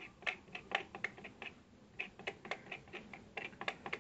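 Knife blade scraping the end of a wire in short, quick strokes, about three a second with a brief pause midway: cleaning the wire so solder will take.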